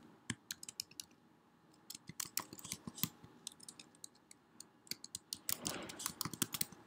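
Typing on a computer keyboard: quick keystroke clicks in three short runs with pauses between them.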